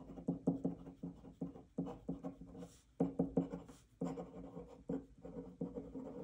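Pen writing by hand on paper: many short scratching strokes in quick runs, with brief pauses between words.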